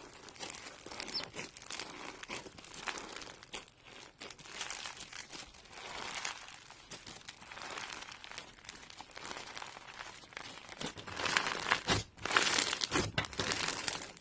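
Crunchy slime being worked by hand, giving a dense, continuous run of crackles and pops that gets louder for the last few seconds.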